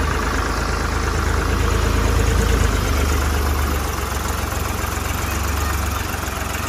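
Ford 3600 tractor's three-cylinder engine running steadily with a deep low rumble as the tractor moves off.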